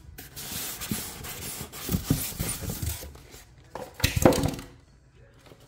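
Styrofoam packing insert and cardboard box being handled, scraping and rustling, with a few knocks; the loudest knocks come about four seconds in.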